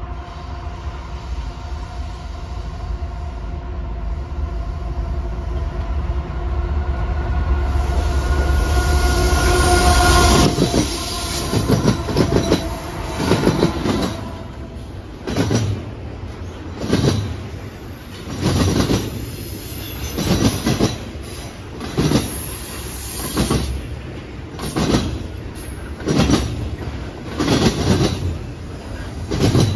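Diesel freight locomotives running past, their engine tone swelling for about ten seconds and then giving way to the freight cars. The cars' wheels clack in a steady rhythm over the rail joints, roughly a double clack every second and a half.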